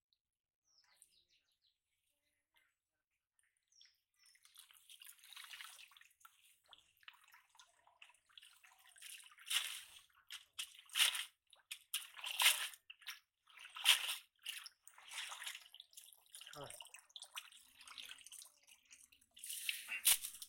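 A wet cast net is hauled out of shallow pond water in a series of splashes, with water sloshing and streaming off the mesh. The splashes begin a few seconds in and come about every second or so, getting louder toward the middle.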